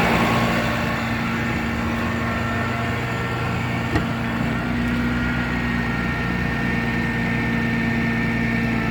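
Dodge Ram 5500 truck's engine idling steadily, with a faint click about four seconds in.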